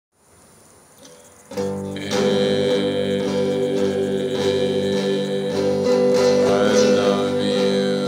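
Guitar played, coming in suddenly about a second and a half in and ringing on steadily, with a man singing along.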